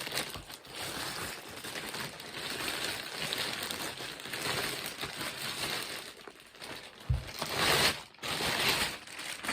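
Packaging rustling and crinkling as a boxed air rifle is handled and unwrapped, in irregular spells that grow louder near the end, with a single dull knock about seven seconds in.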